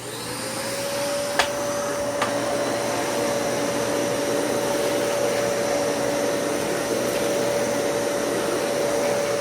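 Dyson Cinetic Big Ball vacuum cleaner motor spinning up to speed, its whine rising and then holding a steady pitch while it runs. Two sharp clicks come early in the run.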